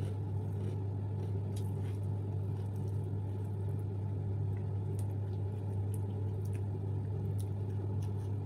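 A steady low hum with a few faint clicks over it.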